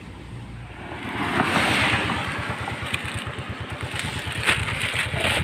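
Small motorcycle engine running with a fast low putter, growing louder about a second in.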